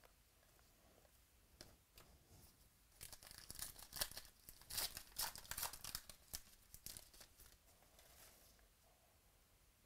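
The wrapper of a 2018 Classics football trading-card pack being torn open and crinkled by hand. There are a few light clicks, then a run of crackling from about three seconds in to about seven seconds, loudest in the middle.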